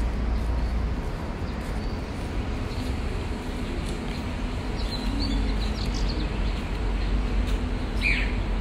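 Outdoor park ambience: a steady background rumble, with a few short bird chirps about five seconds in and near the end.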